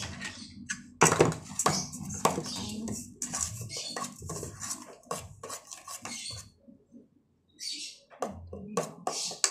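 Metal spoon clinking, knocking and scraping against an aluminium pot while cassava cake batter is mixed. The sharpest knock comes about a second in.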